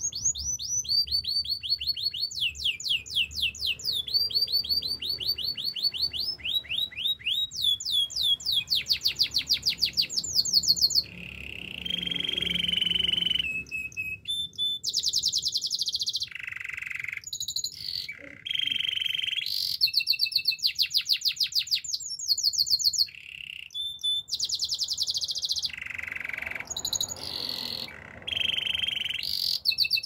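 Domestic canary singing a long, continuous song made of rapid trills: runs of fast repeated notes that sweep in pitch, with a few steadier held notes between the runs and brief breaks near the middle of the song.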